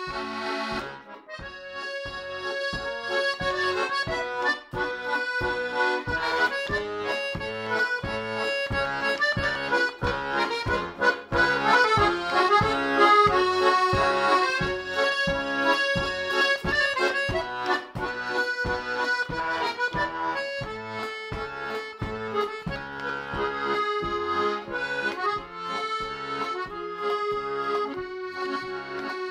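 Button accordion playing an instrumental interlude alone: a melody in the right hand over a steady, evenly repeating bass-and-chord accompaniment.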